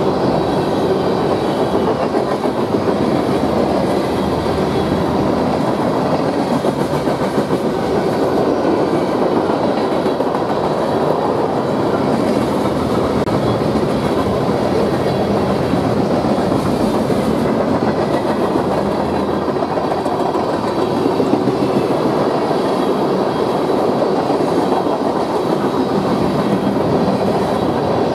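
Cars of a mixed manifest freight train, covered hoppers, a coil car and tank cars, rolling past at speed: a steady, loud rush of steel wheels on the rails that holds without a break.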